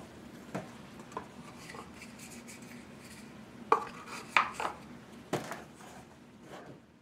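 Wooden perpetual-calendar blocks being handled and turned on a desk: a handful of separate wooden knocks and clacks as the cubes are picked up, rolled over and set down.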